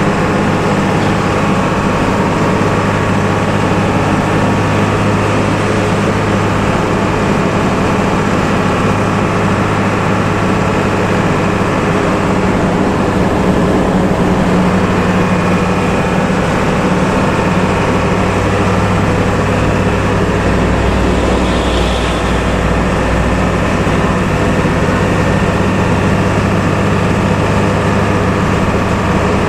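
Intercity bus engine running steadily at highway cruising speed, heard from inside the bus: a constant low engine drone over road noise.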